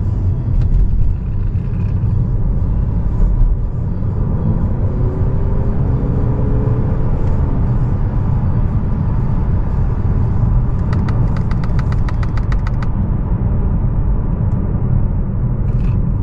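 Steady low road and tyre rumble heard inside a moving Honda Accord's cabin. A faint whine glides in pitch a few seconds in, and a quick run of rapid ticks comes about eleven seconds in.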